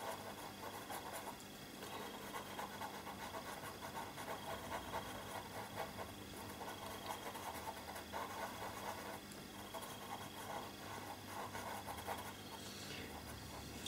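Pastel pencil scratching on paper in short shading strokes, with a few brief pauses.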